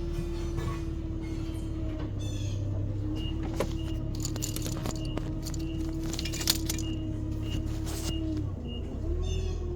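Metal tools clinking a few times against engine parts, over a steady mechanical hum that briefly dips in pitch and recovers near the end, with faint high chirps repeating throughout.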